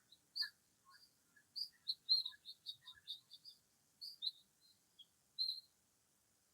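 Small birds chirping: a quick run of short, high notes, busiest a couple of seconds in, with a few lower, softer notes among them.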